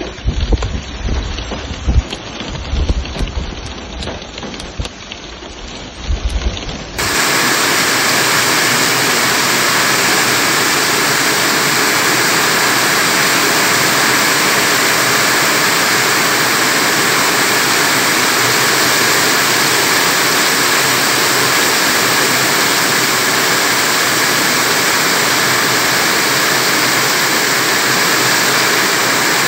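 Heavy rain. For the first several seconds it comes with an uneven, gusty low rumble. About seven seconds in the sound cuts abruptly to a steady, dense hiss of a downpour pelting the ground.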